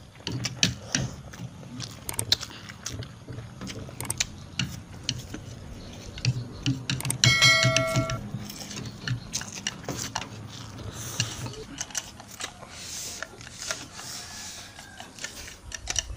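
Noodles being slurped and chewed, with chopsticks clicking and scraping against plastic plates in many quick irregular taps. About seven seconds in, a brief chiming tone sounds for about a second.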